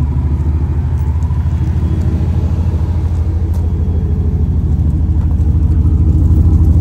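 Cammed Chevrolet Impala SS's LS4 V8 idling with a steady, pulsing exhaust note, getting a little louder about five seconds in.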